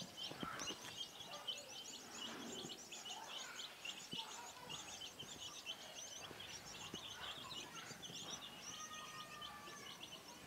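A group of young chickens peeping constantly, many quick high chirps overlapping one another.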